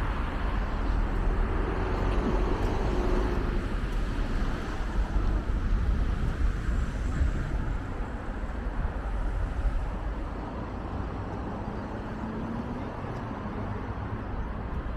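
Steady city street traffic noise: a continuous low rumble of passing cars under a broad hiss, easing off slightly about halfway through.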